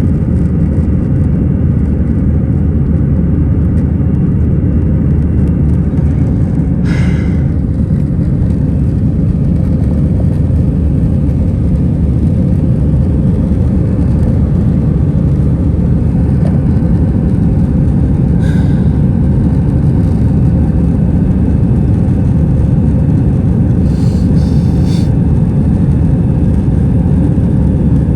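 Airbus A320 cabin noise: a loud, steady low rumble of the engines and airflow. Short higher sounds break in about 7 and 18 seconds in, and again near the end.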